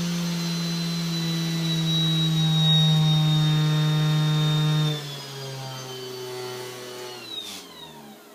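HXKJ 400 W PWM-controlled CNC spindle motor running with a steady hum, slowing in steps as its speed is lowered, dropping sharply in speed and loudness about five seconds in, then winding down to a stop near the end as it is switched off.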